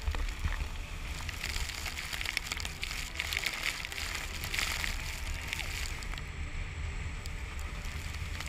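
Water splashing and sloshing, a crackly spatter over a steady low rumble.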